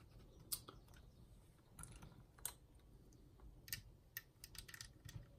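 Faint, sparse and irregular clicks of small plastic Lego pieces being handled and pressed together.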